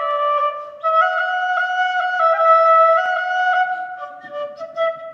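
A solo wind instrument playing a melody one note at a time, with a short breath pause about a second in and a softer phrase near the end.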